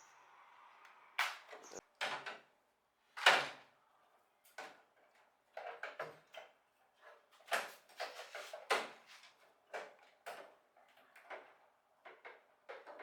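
Irregular knocks, clicks and short scrapes of parts and tools being handled and set down, the loudest knock a little over three seconds in.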